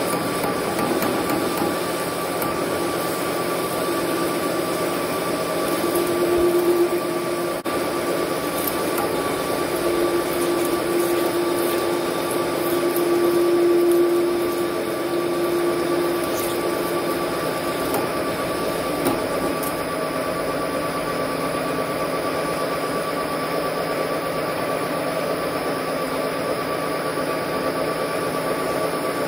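Metal lathe running while a parting tool cuts off a 7 mm section of bush under coolant: a steady machine hum, with a louder steady tone from the cut joining about six seconds in and fading out around seventeen seconds.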